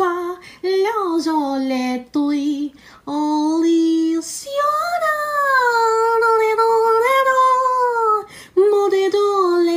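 A woman singing a tune alone, without accompaniment, in several short phrases and one long held line.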